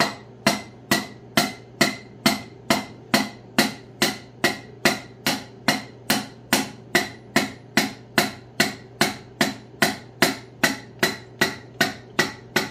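Hammer tapping a piston down through a ring compressor into the cylinder bore of a Farmall 450 engine during assembly. Light, even taps come about two a second, each with a short metallic ring. The steady light tapping shows the rings are sliding in without binding.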